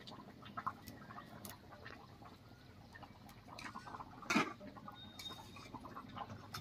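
Faint, scattered animal calls, with one louder short call about four seconds in.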